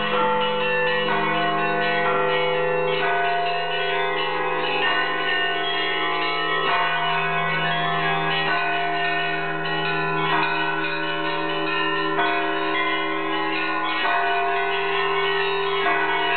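Russian Orthodox church bells rung by hand from a belfry, with ropes pulling the clappers of a set of small and large bells. Many bells are struck in a busy, continuous pattern, their tones overlapping and ringing on over a steady low bell tone.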